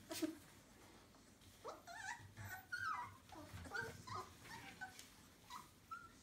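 Young Entlebucher Mountain Dog puppies whimpering, a string of short high squeaky whines starting about a second and a half in. There is one short click near the start.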